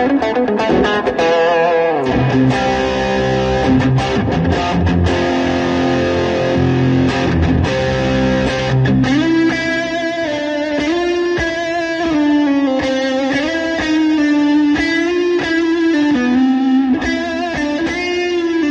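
Electric guitar playing: a held chord a few seconds in, then a melody with bending notes.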